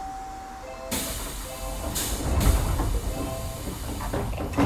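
Semboku 5000 series train's doors closing at a station stop: a short chime of a few tones, then a loud hiss of compressed air about a second in that swells again a second later. A thud near the end is the doors shutting.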